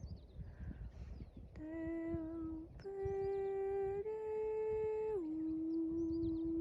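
A voice humming a slow line of long, steady held notes. The pitch steps up twice, then slides back down and holds. Faint high bird chirps and a low rumble sit underneath.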